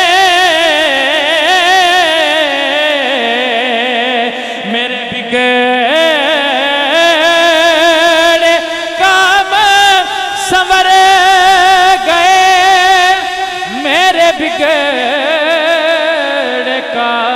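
A man singing a devotional Punjabi kalam into a handheld microphone, drawing out long held notes that waver and glide in pitch, with brief pauses for breath.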